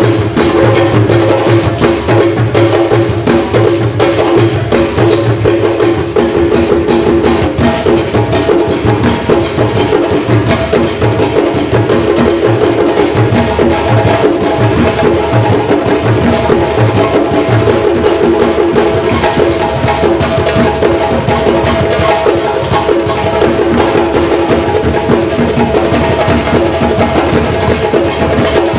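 Live hand-drum ensemble: djembes played by hand and a tall barrel drum struck with a stick, in a fast, dense, steady rhythm. The deep bass strokes drop out about two-thirds of the way through while the higher drums carry on.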